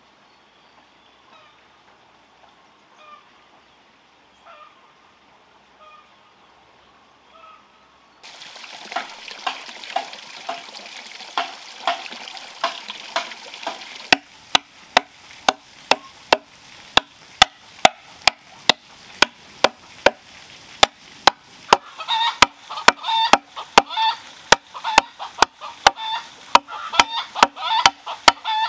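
Machete chopping into a length of green bamboo, sharp strokes at about two a second through the second half. Before it comes water splashing and trickling onto wooden logs, and in the last third repeated pitched animal calls sound over the chopping.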